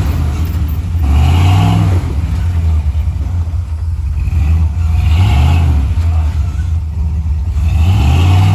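Classic Ford Bronco's engine revving in short pushes, about three times a few seconds apart, as the truck crawls under load up through a rock slot.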